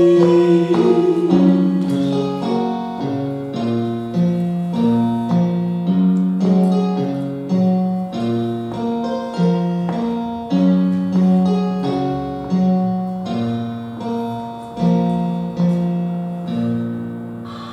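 Piano accompaniment playing on alone in a steady run of struck chords, each note decaying. The singer's last held note fades out about a second in, and the playing grows softer toward the end, closing out the song.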